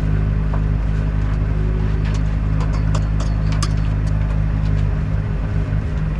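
Sailboat's engine running steadily under way, a constant low drone, with a few light clicks and knocks scattered over it.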